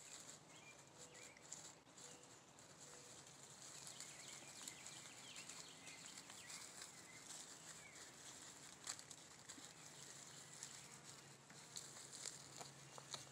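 Faint rustling and crackling of dry leaf litter being stirred, with scattered small clicks, over a steady high hiss. A few faint bird chirps sound in the first few seconds.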